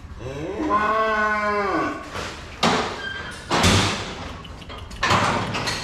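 One long moo from cattle, rising then falling in pitch, followed by three loud knocks or bangs spread over the next few seconds.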